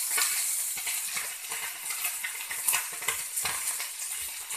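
Small fish frying in hot oil on a flat tawa, with a steady sizzle. A flat spatula scrapes and knocks irregularly against the pan as the fish are pushed and turned.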